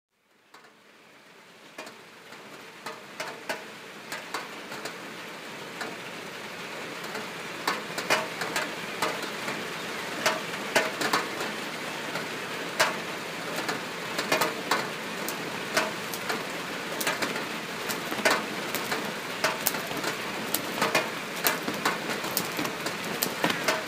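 A hiss fades in from silence over the first several seconds, with irregular sharp ticks and crackles scattered through it, a few each second.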